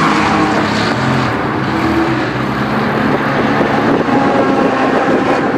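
Ferrari F40's twin-turbo V8 running at a fairly steady engine speed, its note wavering a little.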